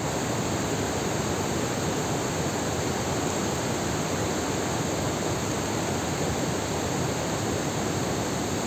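Large waterfall plunging down a cliff, a steady even rush of falling water and spray.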